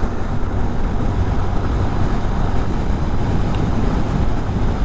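Steady rush of wind on the microphone and engine and road noise from a Honda Hornet 160R motorcycle cruising at highway speed.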